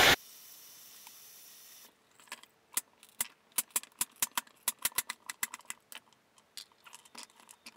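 Chef's knife chopping carrots on a wooden cutting board: a quick, uneven run of sharp chops, a few a second, starting about two seconds in. Before the chopping, a faint steady hiss stops abruptly.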